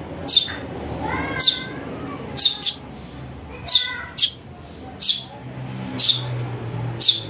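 Young Eurasian tree sparrows calling: a string of about ten short, sharp, high chirps at an uneven half-second-to-a-second spacing, with a few softer, lower notes between them.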